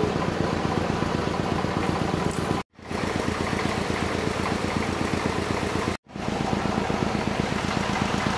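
A small engine running steadily at idle, a dense even low pulsing. It cuts out to silence twice, briefly.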